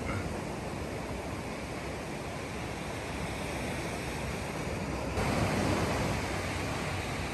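Ocean surf washing on a sandy beach, with wind on the microphone: a steady rushing noise that gets suddenly louder about five seconds in.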